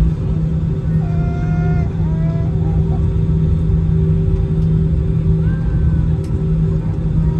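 Steady low drone with a constant hum inside the cabin of an Airbus A320-200 on the ground after landing, with faint voices in the background.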